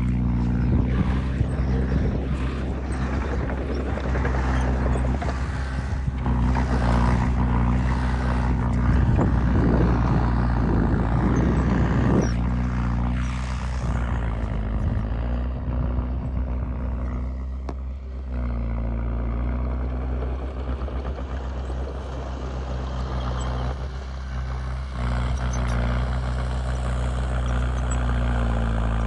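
Komatsu D20P bulldozer's diesel engine working under load, with a heavy clattering from tracks and pushed soil through the first half; the engine note shifts several times as the load changes.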